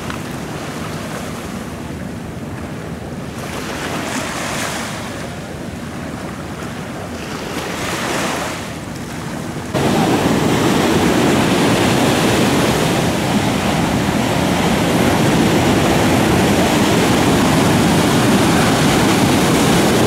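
Wind and water noise, swelling a couple of times, then a sudden jump about ten seconds in to loud, steady surf breaking on a sandy beach with wind rushing over the microphone.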